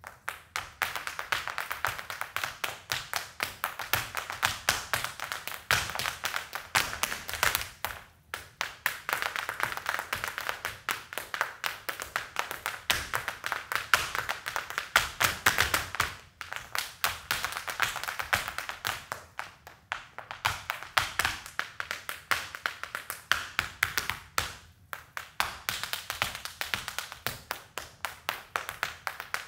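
Irish dance hard shoes striking a hard floor in rapid, dense rhythmic taps. The phrases are broken by short pauses about eight, sixteen and twenty-four seconds in.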